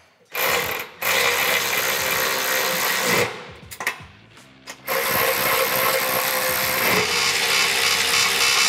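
Cordless electric ratchet running in three bursts, the last about four seconds long, driving the rack's bolts tight, with a couple of short clicks between runs.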